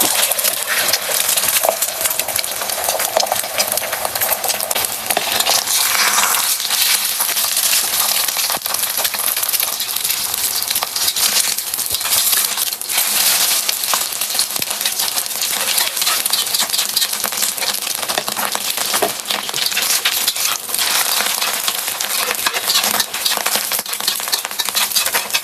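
Food frying in hot oil in a pan: a steady loud sizzle with many small crackles and pops, with some stirring.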